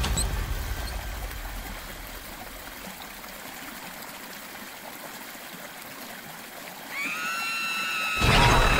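Steady hiss of running water as a low rumble fades away. About seven seconds in, held music tones rise in, and just before the end a loud sudden hit lands.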